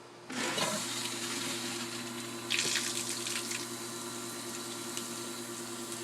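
Aerator pump switching on about a third of a second in, its motor humming steadily while water gushes and splashes from its outlet pipe, the splashing louder for about a second near the middle. The pump is pumping water at a normal rate, which the owner takes to mean it was never faulty.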